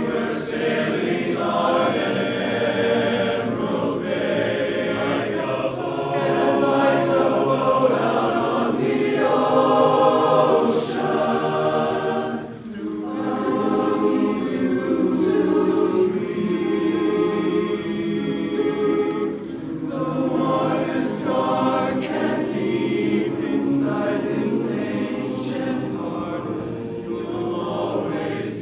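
Men's chorus singing in four-part TTBB harmony, with sustained chords and a brief break between phrases about twelve seconds in.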